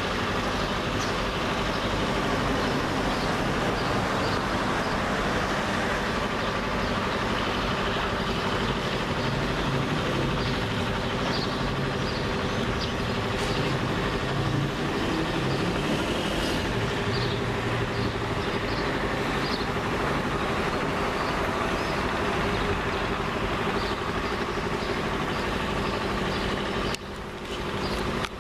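Steady city background noise with a constant engine-like hum, dipping briefly in level near the end.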